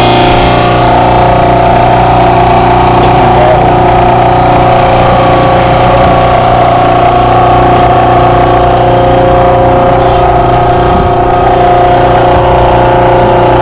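Rainman portable watermaker's electric motor and high-pressure pump running steadily just after start-up, a steady hum with a few held tones.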